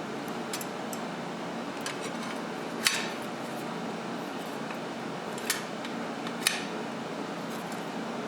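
Light metallic clicks and clinks of small metal parts or tools being handled, three sharper clinks among them, over a steady background hum.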